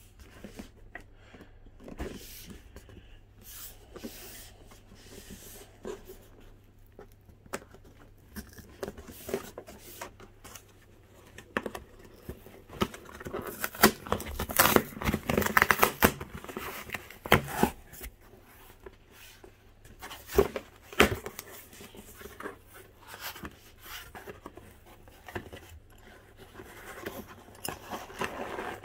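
Cardboard box and packaging of a cordless power tool kit being opened and handled: tearing, rustling and scraping with scattered clicks and knocks. The busiest, loudest stretch comes about halfway through.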